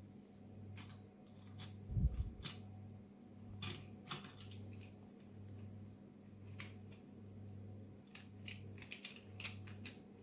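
Scattered small clicks and taps of a diecast model car's parts being handled and fitted back together, with a heavier low thump about two seconds in.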